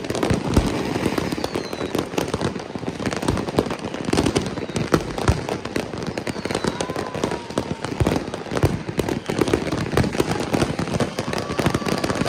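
Many fireworks and firecrackers going off at once: a dense, unbroken crackle of pops and bangs, some louder booms standing out among them.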